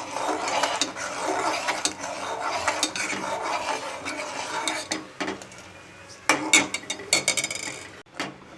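A spoon stirring milk thickened with coarsely ground rice in a cooking pot, scraping steadily round the pan for several seconds. Near the end, a few sharp clinks of the spoon against the pot.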